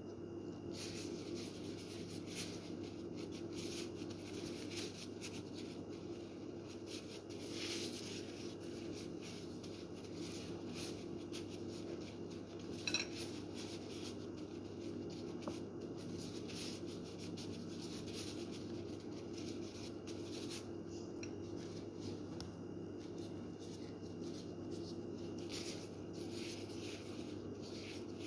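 Thin plastic food-prep gloves rustling and crinkling as hands roll and shape a soft ball of food mixture, over a steady low hum, with one light clink about halfway through.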